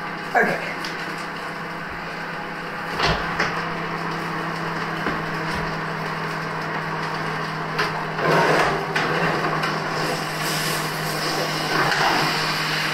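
Kitchen clatter: a few scattered knocks and bumps, as of things being handled and set down, over a steady low hum.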